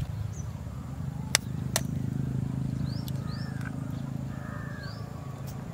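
Small birds chirping a few short rising notes over a steady low rumble, with two sharp clicks close together about a second and a half in.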